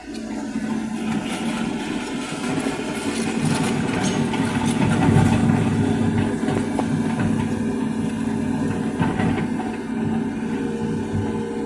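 An excavator's diesel engine runs steadily with a constant hum, and short metallic clanks come and go over it.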